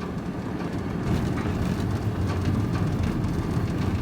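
Van engine and road noise heard from inside the cab while driving: a steady low rumble that gets louder about a second in.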